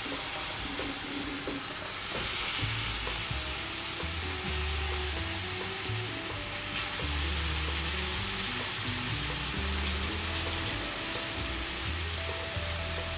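Spice-coated pineapple pieces sizzling steadily in hot oil in a frying pan. Background music plays underneath.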